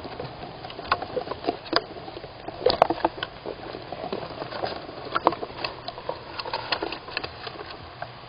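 A squirrel scrabbling about inside a wooden nestbox: irregular scratches and knocks of its claws on the wooden floor and walls, close to the microphone.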